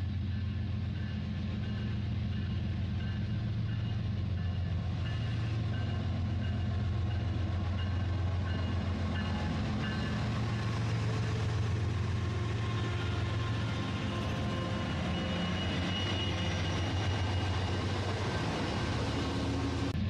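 Train running: a steady low rumble with a fast, even clatter and faint steady tones above it.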